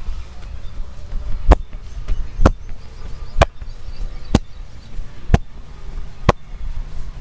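A masseur's hands striking the body in a massage: six sharp slaps, evenly spaced about one a second, over a low background rumble.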